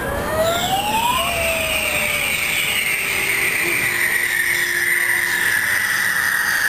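Fireworks display with a few short rising whistles near the start, then one long whistling tone that falls slowly in pitch.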